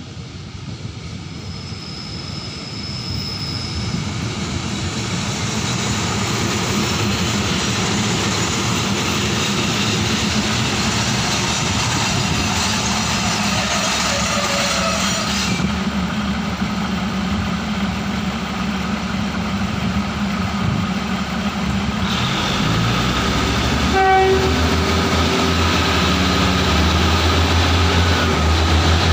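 Diesel railcar train approaching and running along the platform, growing steadily louder over the first several seconds with engine and wheel noise. About three-quarters of the way through there is a short horn-like note, then the diesel engine's deep drone grows louder as the railcar powers away, sending up black exhaust.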